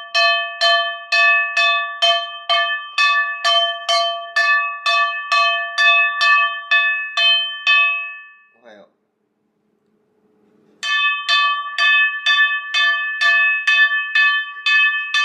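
Black frying pan struck over and over with a wooden spoon, about three clangs a second, each ringing like a bell. The banging breaks off for about two seconds past the middle, then starts again.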